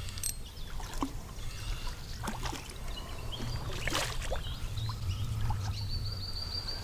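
Small carp splashing and water dribbling at the bank's edge as it is played in on the line, with scattered light clicks.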